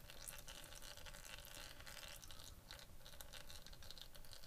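Near silence, with a few faint clicks and scrapes as a T-handle socket wrench slowly unscrews a motorcycle's clutch-side oil drain bolt.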